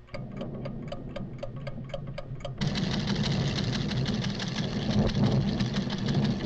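Cartoon sound effects: a recording instrument ticking fast and evenly, about seven ticks a second, over a low rumble of volcanic tremor. About two and a half seconds in, the rumble suddenly swells into a loud, steady roar that drowns out the ticking.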